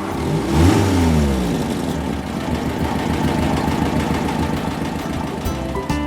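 Tow truck engine sound effect: a rev that rises and falls in the first second or so, then the engine running steadily.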